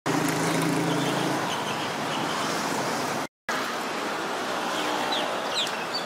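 Outdoor road-traffic noise, steady throughout, with a low vehicle engine hum in the first second or so. A split-second dropout to silence comes a little past three seconds, and a few short high chirps sound near the end.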